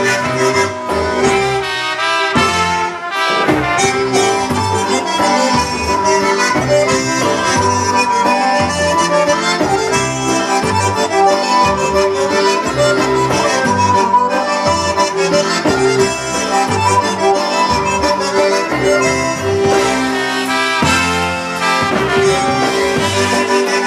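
Live polka band playing an oberek: concertina and piano accordion carry the tune with two trumpets, over electric bass and drums.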